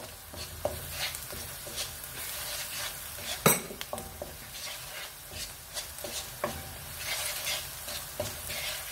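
Chopped onions, green chillies and ground spices sizzling in oil in a wok while a wooden spatula stirs and scrapes them around the pan, with one sharp knock about three and a half seconds in.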